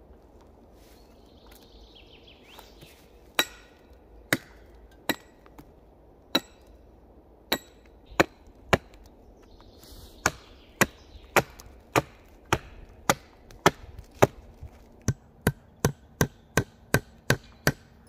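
Hand axe chopping wood: sharp single blows, a few spaced strokes at first, then a steady run of roughly two strokes a second that quickens near the end.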